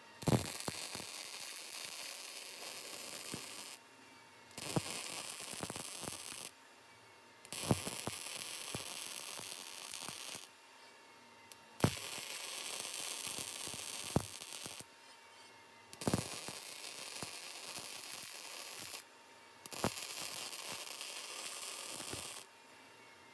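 MIG welder arc crackling and hissing in six short runs of two to four seconds, each starting with a sharp pop as the arc strikes. The welder is laying a bead that fills the gap where a steel collar meets the base.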